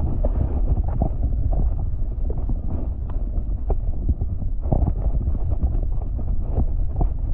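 Muffled underwater sound from a submerged camera in shallow lake water: a low rumble of water moving around the housing, with scattered soft clicks and knocks as a hand holds and releases a trout.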